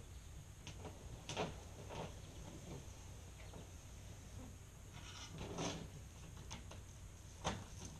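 Faint scattered knocks and rustles over a low steady rumble. The clearest come about a second and a half in, around five and a half seconds, and near the end.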